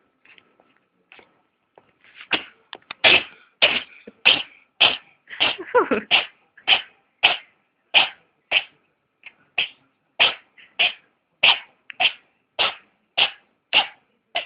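Domestic cat sneezing over and over in a long fit of about twenty sharp sneezes, roughly one every half second or so, starting about two seconds in after a few faint sniffs. A brief wavering voiced sound is mixed in about six seconds in.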